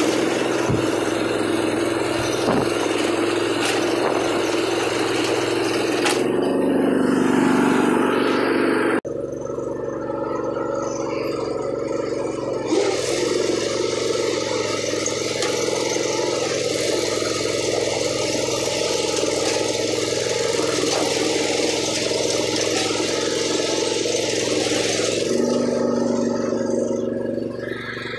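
Small engine of a half-track riding lawn mower running steadily as it pulls a moldboard plow through soil. The sound changes abruptly about a third of the way in, and the engine note drops near the end.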